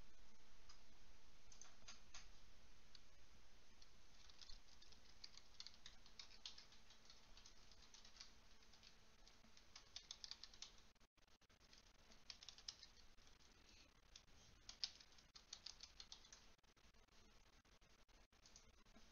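Faint computer keyboard typing: scattered short runs of key clicks over near-silent room tone.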